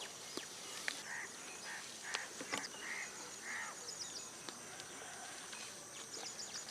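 Birds calling outdoors: a series of short, faint calls about every half second, with a few higher chirps between them.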